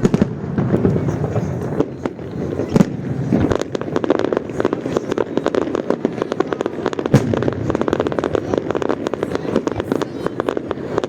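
Fireworks salute: shells bursting with a few loud bangs, and from about three and a half seconds in a dense crackle of many rapid small pops.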